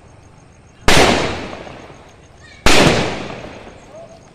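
Two aerial firework shells bursting in the sky, about two seconds apart. Each is a sharp, loud bang that trails off over a second or so.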